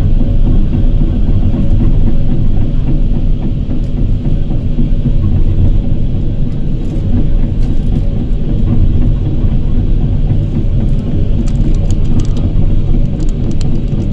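Tracked excavator's diesel engine running with the machine travelling on its tracks, heard from the operator's cab: a loud, steady low rumble with a steady whine above it.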